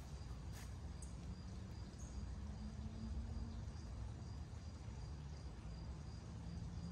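Insects chirping in an even, repeating rhythm over a steady low outdoor rumble, with a couple of faint clicks about half a second to a second in.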